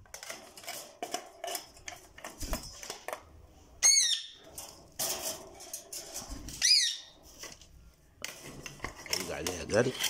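A stainless steel feeding bowl clinking and knocking against the wire cage bars as it is set in place, with a parrot squawking sharply twice, about four and seven seconds in.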